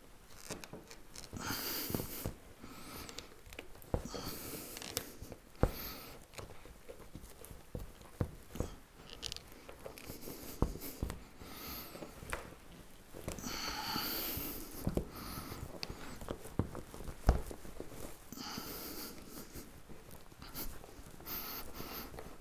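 Hands working a rubber windscreen seal onto the glass of a classic Mini: intermittent rubbing and squeaking of rubber against glass, with a few sharp knocks, the loudest about a third of the way in and again near three-quarters.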